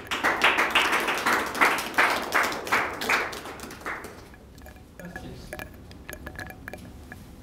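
Small audience applauding, the clapping dying away about four seconds in to a few faint scattered ticks.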